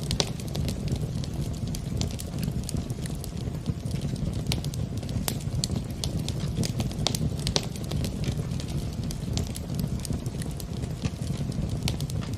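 Wood fire in a fireplace crackling, with irregular sharp pops and snaps scattered over a steady low rumble.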